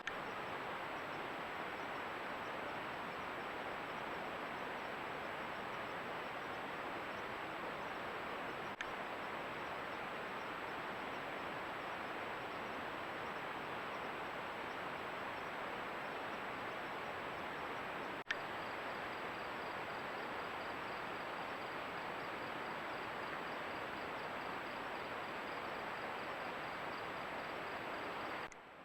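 Steady outdoor hiss picked up by a camera microphone, with a faint high steady whine above it and brief clicks about 9 and 18 seconds in.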